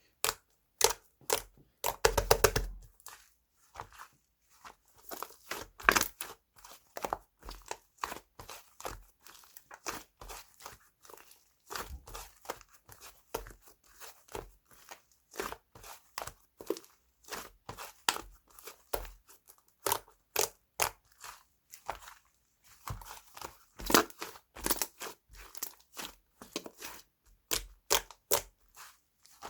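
Close-up handling of paper and plastic wrapping: a busy string of short crinkles, tears and clicks, with a longer tearing rasp about two seconds in.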